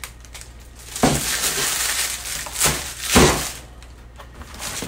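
Heavy cast iron grill grate in plastic wrap being lifted out of its cardboard box, the wrap and cardboard rustling, then a knock and a heavier thump about three seconds in as the grate is set down on a wooden table.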